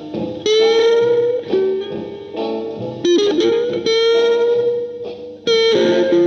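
Stratocaster-style electric guitar played through an amplifier: a slow lead line of picked single notes, each held and ringing for a second or more. One note wavers in pitch a little past halfway.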